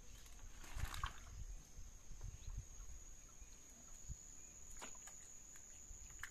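An insect's steady high-pitched trill runs throughout, with low rumbling noise about a second in and again around two to three seconds in, and a few faint clicks.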